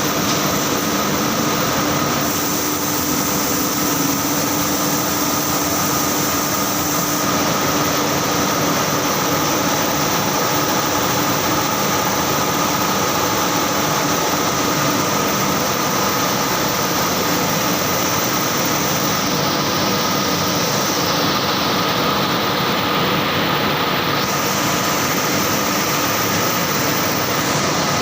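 Carding machine running continuously: a steady mechanical drone with a constant high whine over a dense hiss, with no change in speed.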